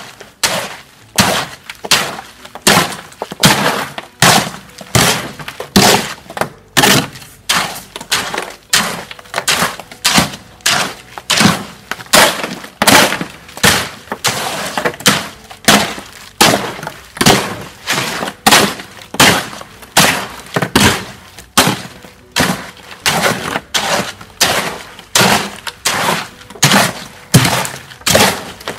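A hoe scraping and chopping through stiff, gritty concrete in a steel wheelbarrow, in a steady rhythm of strokes a little more than one a second. It is a dry, low-slump mix being worked to blend in superplasticizer powder.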